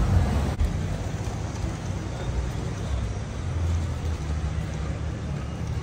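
Road traffic in a town street: motor vehicles running past with an uneven low rumble.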